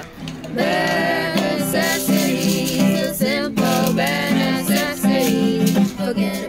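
Background music: an upbeat song with plucked guitar under a wavering melody line.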